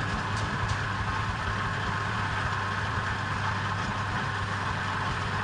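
A machine running steadily with a constant low hum and no change in speed.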